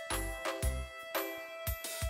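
Background music: a light tune with bell-like tones over a steady beat.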